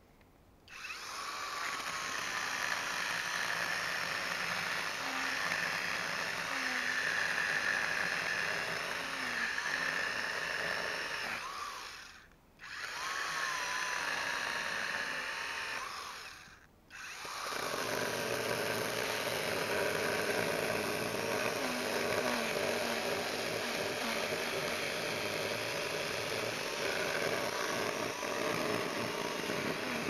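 Battery-powered cordless electric chainsaw running and cutting into a log, a steady motor whine with chain noise. It starts just under a second in and stops briefly twice, about twelve and seventeen seconds in, before running on.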